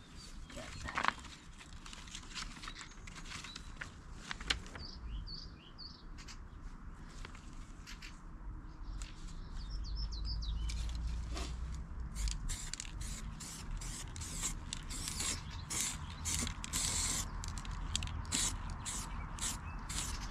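Small birds chirping now and then. From a little past halfway, a quick run of short hissing strokes, about two or three a second, is the loudest sound, over a low steady rumble.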